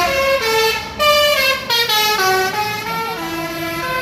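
Indonesian bus 'telolet' basuri multi-tone air horn playing a tune: a run of held notes stepping up and down in pitch, one after another.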